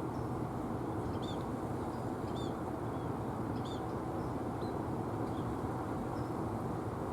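Small birds giving short high chirps several times over a steady low rumble.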